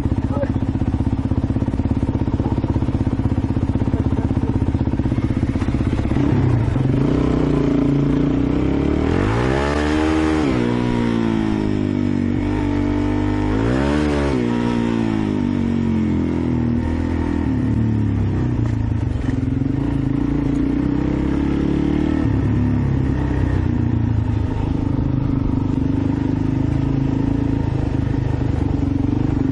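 Motorcycle engine running at low speed on a rough dirt road. It is revved up and let back down twice, about ten and fourteen seconds in.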